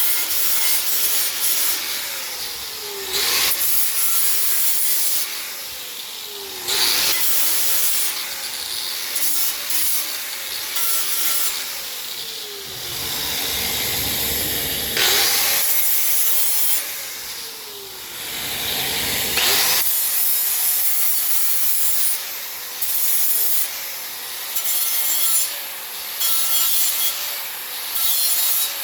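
Rough abrasive scraping on a wheel rim in repeated passes, with a faint whine that dips in pitch at each pass.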